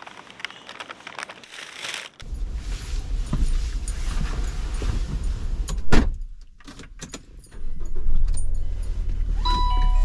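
Rustling and clatter, then a steady low rumble and one loud thud about six seconds in, like a car door shutting. About a second and a half later the car's engine starts and runs steadily, and a steady electronic tone sounds near the end.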